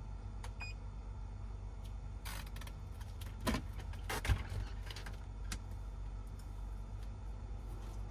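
Small electric fan being switched on and set up: a short electronic beep from its control about half a second in, over a steady low hum. Then a few knocks and clunks of handling, loudest at about three and a half and four seconds in.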